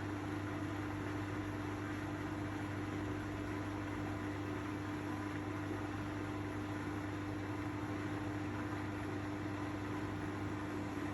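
Miele Professional washing machine on its spin cycle, the drum running at a steady speed: a constant hum with a steady whining tone over the rush of the spin.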